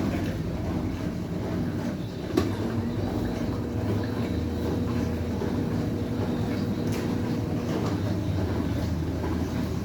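Consul CWB09BB 9 kg washing machine in its spin acceleration, a steady low rumble of the spinning drum with a motor hum. A single short knock about two and a half seconds in.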